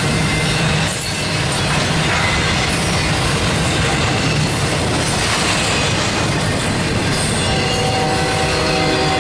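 Double-stack intermodal well cars rolling past on steel wheels and rail, a steady heavy rumble. A few seconds before the end, a wheel squeal with several thin steady tones joins in.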